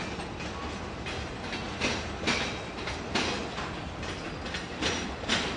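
Freight cars rolling past close by: a steady rumble of steel wheels on the rails, broken by sharp clacks, sometimes in quick pairs, as the wheels pass over the track.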